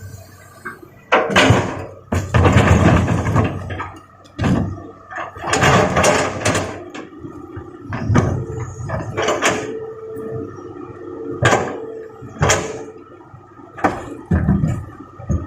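Large rocks crashing and clattering as an excavator loads them into a dump truck's steel bed: a series of heavy impacts, some drawn out into rumbling slides, over the steady running of the diesel machinery.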